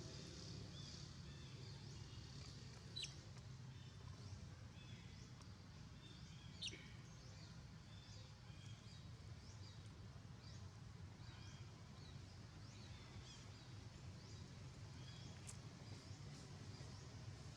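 Faint outdoor ambience of many small birds chirping over a steady low hum, with two louder, sharp falling calls about three and six and a half seconds in.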